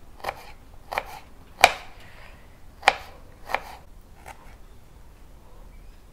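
Kitchen knife chopping a red onion on a cutting board: six sharp knocks of the blade on the board, spaced unevenly about two thirds of a second apart, then the chopping stops about four and a half seconds in.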